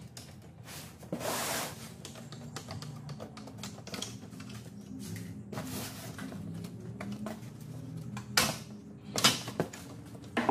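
Clicks and knocks of a plastic truck grille being handled and taken apart as its chrome bar is unbolted and lifted off, over soft background music. A few sharper knocks come near the end.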